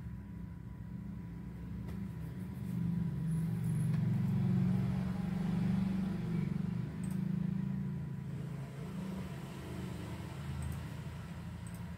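A low rumble that swells about a third of the way in and eases off again, with a faint steady high tone beneath it.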